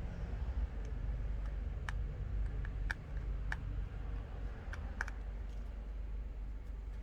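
Scattered small, sharp clicks and taps of tweezers and a screwdriver against tiny screws and metal brackets inside an iPhone 12 during reassembly, over a low steady hum.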